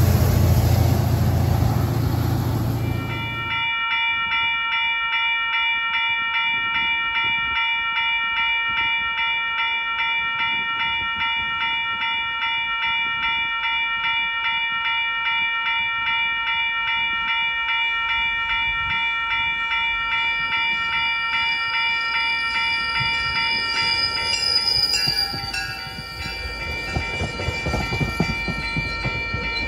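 A diesel commuter train's loud low rumble cuts off about three seconds in. A railroad grade-crossing bell then rings steadily in an even, repeating pattern. Near the end, a higher wavering tone joins and the rumble of an approaching commuter train builds.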